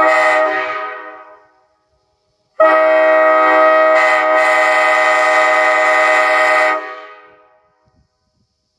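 1981 Nathan AirChime K5LA five-chime train horn, a big-bore five-bell unit with a tagless manifold, sounding its chord. It gives one short blast, then a long steady blast of about four seconds. Each blast dies away in an echo off the surrounding hills.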